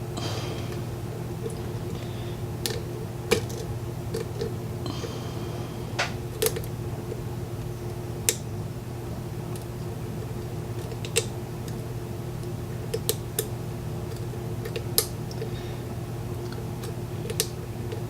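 Lock pick and tension wrench working the pin stack of a Corbin Russwin mortise cylinder during single-pin picking: scattered, irregular sharp metallic clicks and light scrapes over a steady low hum.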